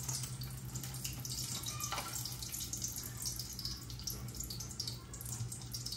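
Lumpia deep-frying in hot cooking oil: a steady sizzle with irregular small crackles, over a low steady hum.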